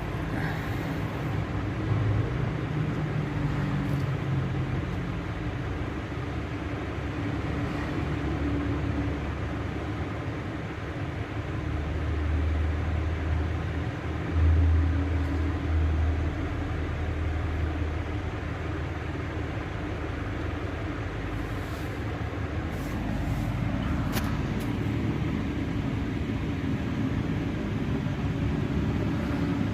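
Steady low mechanical rumble with a hum, swelling for a few seconds around the middle.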